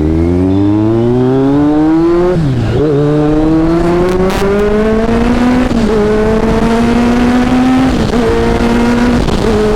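Kawasaki Z900's inline-four engine through an SC Project exhaust under full-throttle acceleration. Its pitch climbs steadily and drops at each upshift, about two, six and eight seconds in.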